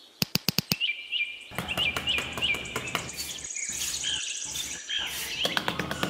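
Bird-like chirping, one short chirp about three times a second over a low background hiss, after a quick run of about five sharp clicks at the start. Music with a fast ticking beat comes in about five and a half seconds in.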